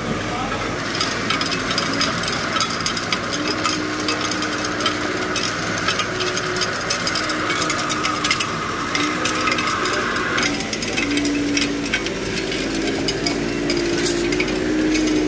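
Small machinery running: a fast, irregular ticking clatter for the first nine seconds or so, over a motor hum that steps up and down in pitch and climbs near the end.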